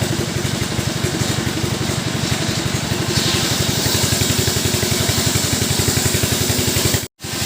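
STIHL chainsaw engine running steadily at idle, with an even, fast low pulse. The sound cuts out completely for an instant near the end.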